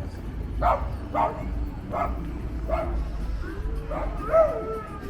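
A dog barking four times, about a second apart, then higher sliding yelps near the end, over a low steady rumble.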